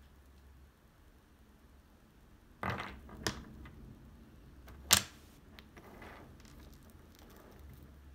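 Wooden lacing beads on a cord shifting and knocking against each other and a hard surface: a short scraping rustle about two and a half seconds in, then one sharp wooden click near five seconds, the loudest sound.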